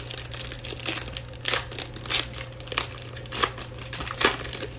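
Plastic wrapping on a trading-card box or pack crinkling and tearing as it is opened by hand, with several louder crackles among the steady rustle.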